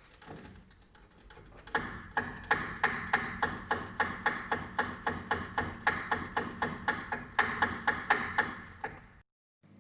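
Haier HW70-BP12758S washing machine knocking rapidly and evenly, about three sharp knocks a second, as the drum rocks during spin-up; the owner traced it to the short, taut motor wire slapping against the plastic power-supply cover. It breaks off suddenly near the end.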